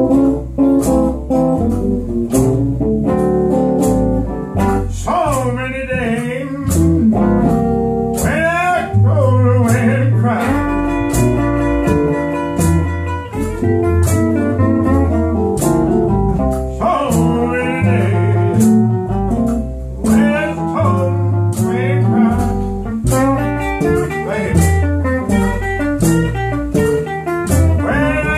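Live band playing a slow blues-style song: upright double bass plucked under guitar, with a voice singing in stretches.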